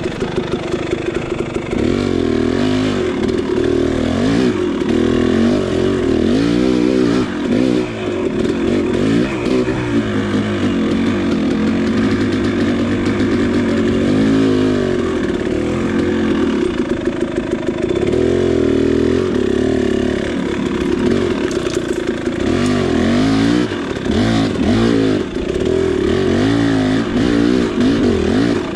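KTM 300 two-stroke dirt bike engine revving up and down in short, repeated throttle bursts as the bike is ridden over technical trail.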